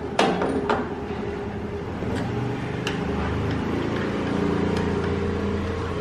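Light metallic clicks and clinks, a handful scattered through, as kick-start parts are fitted by hand into the open gearbox housing of a Royal Enfield Bullet 350 cast-iron engine, over a steady low mechanical hum.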